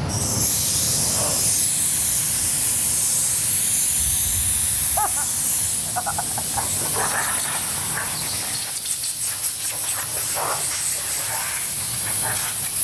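Compressed-air blow gun hissing as it blasts sanding dust off a primed electric-guitar body before painting. The hiss starts abruptly about a third of a second in, is strongest for the first six seconds, then goes on more weakly.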